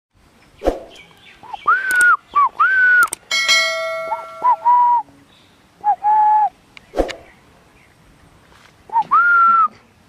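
Indian ringneck parrot whistling: clear, pure notes that rise, hold and drop away, mostly in pairs of a short note followed by a longer one. Two sharp clicks, one under a second in and one about seven seconds in, and a bell-like ding a little after three seconds are mixed in.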